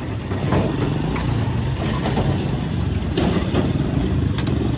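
Road traffic: motor vehicle engines running, a steady low rumble, with a couple of sharp clicks near the end.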